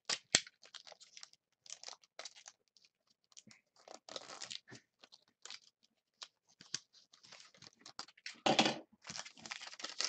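Foil trading-card pack being torn open and its wrapper crinkled, in short, irregular crackles. A longer, louder crumple comes near the end.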